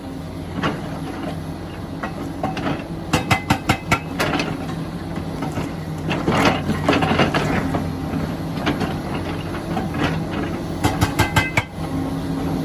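Komatsu PC400LC excavator's diesel engine running steadily, with short runs of rapid blows, several a second, from its Rammer hydraulic breaker hammering rock, twice, and a stretch of louder clattering between them.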